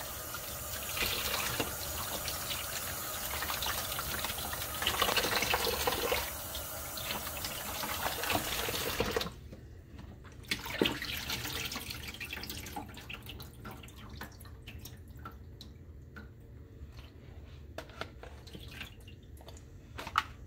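Kitchen tap running into a sink while raw snapper is rinsed by hand in a plastic bowl. The water shuts off sharply about nine seconds in, leaving scattered small clicks and splashes as the wet fish are handled.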